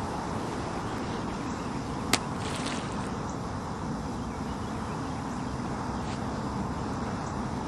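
Wind buffeting the microphone in a steady rumble, with one sharp crack about two seconds in.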